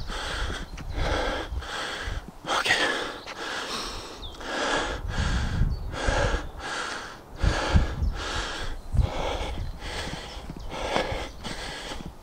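A man breathing hard and fast through his open mouth, deliberately ventilating, at about two even breaths a second.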